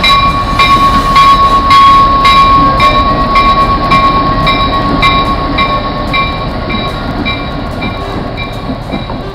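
Diesel locomotive moving slowly past with its bell ringing, about one and a half strokes a second, over a steady high-pitched squeal and the rumble of the train. The sound is loudest a couple of seconds in and fades as the train moves away.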